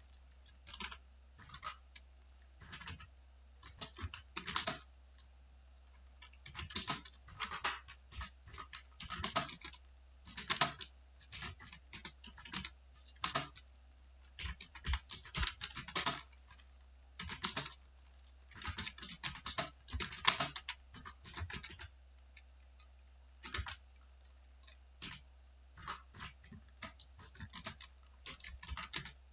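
Typing on a computer keyboard: quick runs of key clicks with short pauses between words, over a faint steady low hum.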